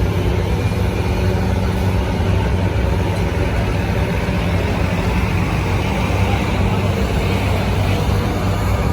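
Farm tractor engine running loud and steady, a low, even drone, typical of a tractor pulling a weight sled down the track.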